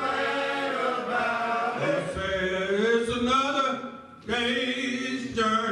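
Men's choir singing a gospel song in several voices, pausing briefly for breath about four seconds in.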